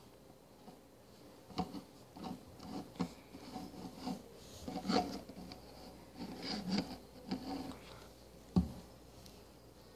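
Handling noise from a phone held against the face and hair: faint, irregular rubbing and scraping rustles, with a sharper knock near the end.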